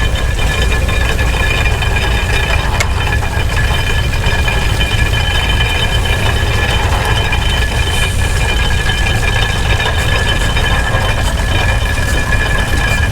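Steam-powered farm engine running steadily: a low rumble with several steady high whining tones over it.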